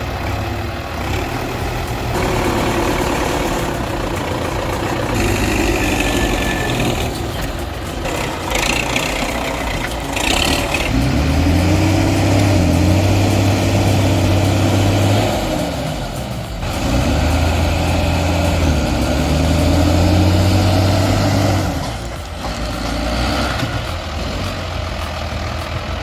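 Heavy tractor diesel engines working hard under load, towing a stuck tractor out of deep mud. The engine note climbs and holds for several seconds at a time, most strongly in two long pulls in the middle, with easing between.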